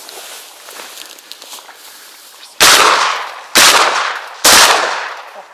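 Three shotgun shots fired at ducks, starting about two and a half seconds in and coming about a second apart. Each is a sharp crack that dies away over most of a second.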